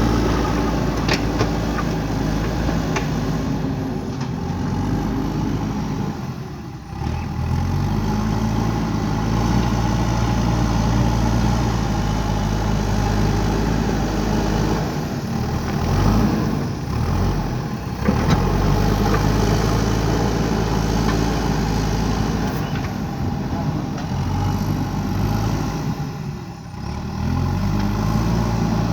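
JCB 3DX backhoe loader's diesel engine running steadily. Its note dips and then climbs again three times, about a quarter, just over half and nearly all the way through.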